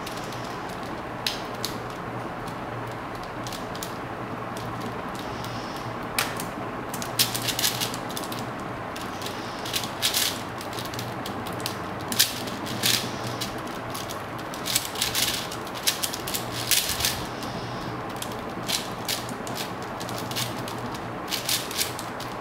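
Plastic 4x4 speedcube being solved, its layers turned in quick runs of clicks and clacks, sparse at first and dense from about seven seconds in, over a steady low hum.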